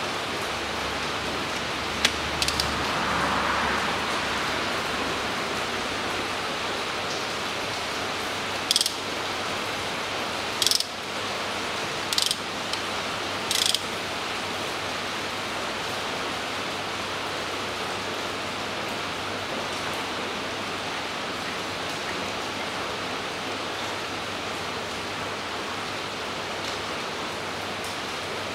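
Ratchet wrench clicking in several short bursts between about 2 and 14 seconds in, as a spark plug is worked loose with a spark-plug socket, over a steady hiss of rain.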